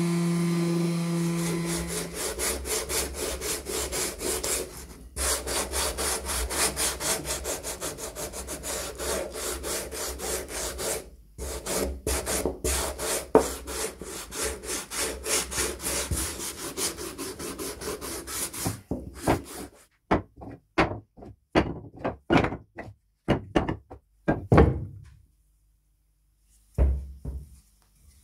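A hand tool worked back and forth on wood in steady strokes, about three a second, with two short breaks, slowing to single, spaced strokes near the end. A steady hum stops within the first two seconds.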